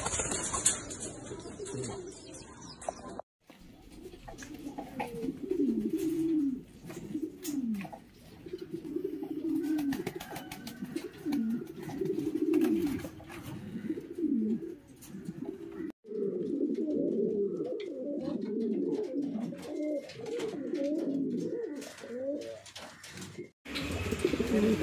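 King pigeons cooing: repeated low, falling coos from several birds, heard across a few recordings that break off abruptly into one another.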